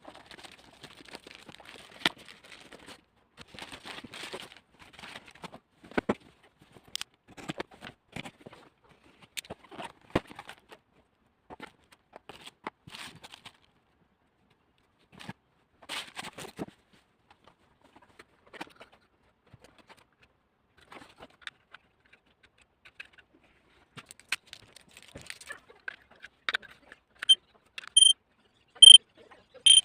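Packaging and plastic parts handled in scattered rustles and clicks. Near the end a carbon monoxide alarm starts beeping: short, high-pitched beeps, a little more than one a second, louder than the handling.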